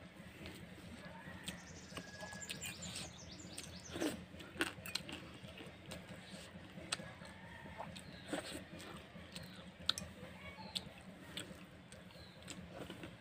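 Eating sounds of a person eating water-soaked rice by hand: fingers working the wet rice in a steel bowl, picking at side dishes, and chewing with mouth clicks and smacks scattered through. Bird calls in the background.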